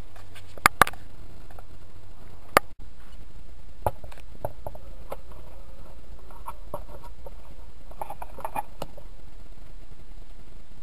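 Sharp clicks and taps from hands handling a radio-controlled boat's plastic hull and drive parts, two loud clicks about a second in and another near the three-second mark, then a scatter of small ticks. A steady low hum runs underneath.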